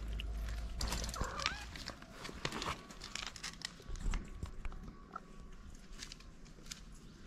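Cats chewing and lapping wet cat food from plastic dishes, a rapid run of wet smacking clicks, with a short high chirp about a second in. The clicks thin out after about three seconds.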